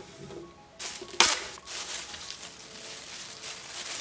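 Thin clear plastic bag crinkling and rustling as it is pulled from a roll and opened, with one sharp snap about a second in.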